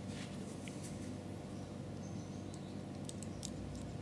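Cotton-gloved hands handling a miniature scale-model rifle of metal and wood, with soft rustling and a quick run of light clicks about three seconds in, over a steady low hum.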